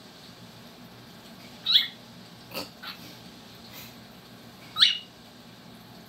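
Cockatiel giving two short, sharp rising chirps about three seconds apart, with a single click between them.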